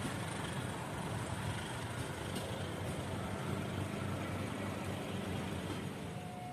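Steady low rumble of distant engines, with an even hiss over it.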